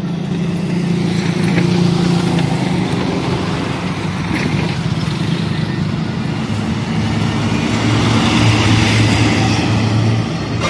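A loud vehicle engine running steadily, its deep drone shifting lower for a couple of seconds near the end.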